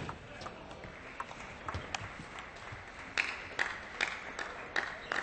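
Table tennis ball clicking off bats and table: scattered clicks at first, then a steady exchange of about two to three hits a second from about three seconds in, as in a rally.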